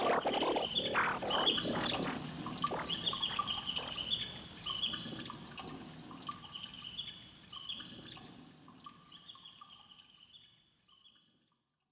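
Short, bird-like chirps repeating over a faint wash of noise, the whole sound fading away and gone before the end.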